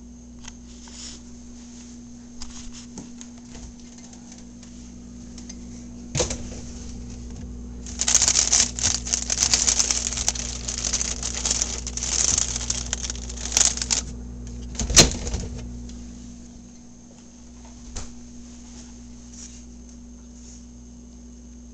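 Hamster eating: crunchy nibbling and gnawing clicks close to the microphone, sparse at first, then a dense crackling run of several seconds in the middle, with a couple of sharper single clicks, over a steady low hum.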